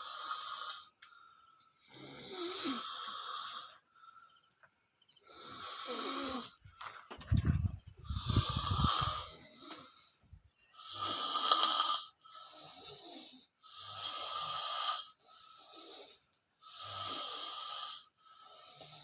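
A sleeping person snoring, a rasping breath about every two to three seconds. Around seven to nine seconds in comes a louder, deeper rattling snore.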